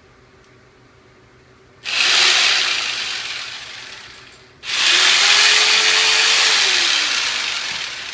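Electric jigsaw running in two bursts, the second longer. The motor's pitch rises as it starts and falls as it winds down.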